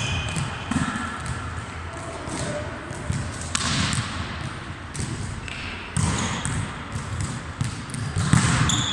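Volleyballs being struck and bouncing on a hard gym floor: a run of sharp slaps and thuds at uneven intervals, the loudest about three and a half, six and eight and a half seconds in, ringing in a large hall.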